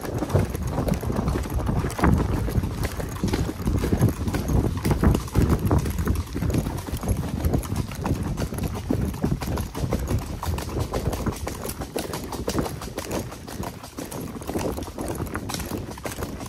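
Hoofbeats of ridden horses: a steady clip-clop that runs on without a break.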